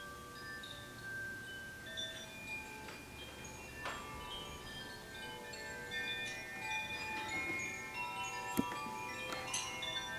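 Chimes ringing: many clear tones at different pitches sound at scattered moments and overlap, with a few sharper strikes in the second half.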